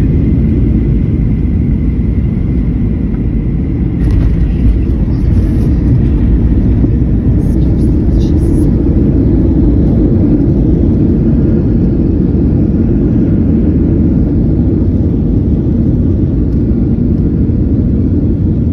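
Jet airliner rolling out on the runway after landing, heard from inside the cabin: a steady, loud low rumble of engines and wheels, growing a little louder about four seconds in.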